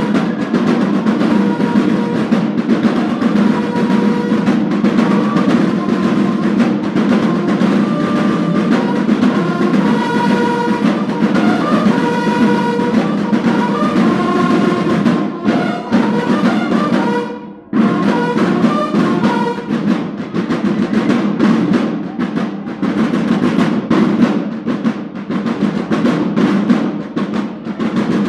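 Banda de guerra (drum and bugle corps) playing: a line of marching drums beating a continuous march cadence with rolls, and bugles sounding held notes over the drumming. The whole band breaks off for a moment about 17 seconds in, then resumes.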